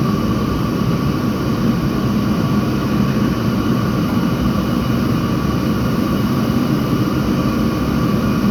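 Steady, loud mechanical drone with faint steady whining tones, unchanging throughout.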